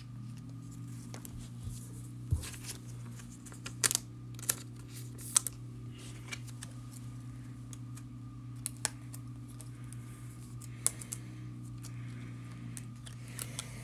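Trading cards being handled by hand: scattered light clicks and taps as the cards are shuffled and set down, over a steady low hum.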